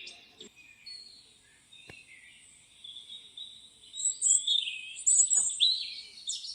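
Recorded countryside birdsong: small birds chirping and warbling over a thin, steady high trill. It gets busier and louder from about four seconds in.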